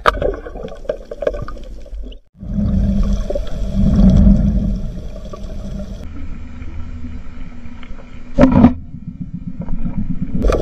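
Water churning and bubbling as a diver's action camera goes under the surface. It is followed by a steady, muffled low rumble of underwater sound heard through the camera housing, with a short loud burst about eight seconds in.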